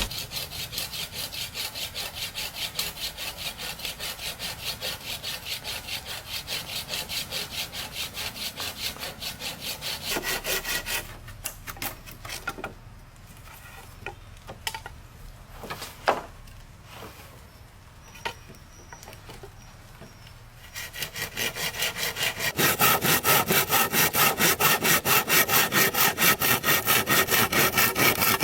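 Hand saw cutting wood in rapid, even back-and-forth strokes. The sawing stops for about ten seconds, with a few knocks, then resumes louder.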